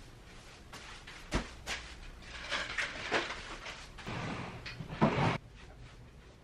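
Household handling clatter: a few sharp knocks and clicks, then a louder, noisy scraping stretch about four to five seconds in.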